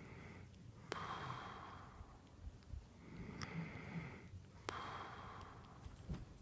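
A man snoring in deep sleep: slow, noisy rasping breaths, about two full breaths, with a sharp click at the start of the out-breath about a second in and again near five seconds.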